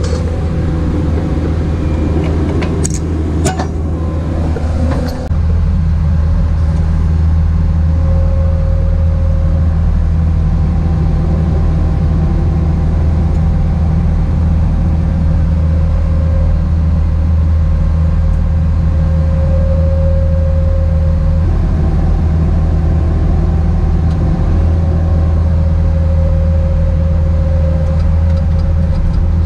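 Bobcat tracked skid steer's diesel engine running steadily under load while its hydraulic drive head turns a helical pier into the ground, with a whine that comes and goes. A few clicks sound early on, and about five seconds in the sound steps up louder, as heard from inside the cab.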